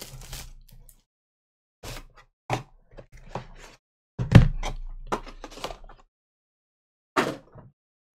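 Cardboard trading-card boxes being handled and opened: a string of separate taps, scrapes and knocks, the loudest a low thump about four seconds in.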